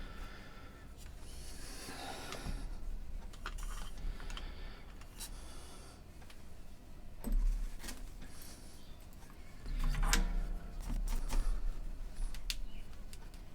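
Scattered light clicks and handling noises of small hand tools and thin cable being worked on a bench, with a few low bumps about halfway through and again near the end.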